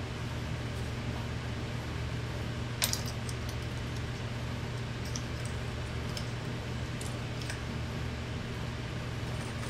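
Steady low hum of an industrial sewing machine's motor running without stitching. A sharp metallic click comes about three seconds in, and a few lighter ticks follow later.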